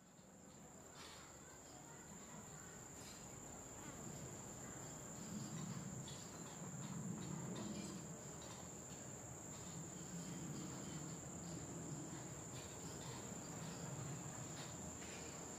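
Insects trilling: one steady, unbroken high-pitched buzz, faint, over a soft low hum of outdoor ambience.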